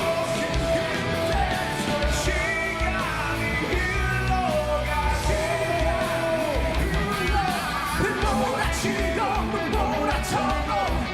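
Rock band playing live: drums, bass and electric guitars, with a voice singing over them.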